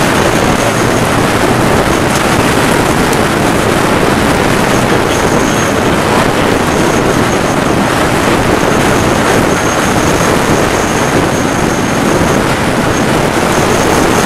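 Steady, loud rushing noise of storm wind and road noise heard from inside a chase vehicle during a severe thunderstorm. A faint high whine comes and goes over it.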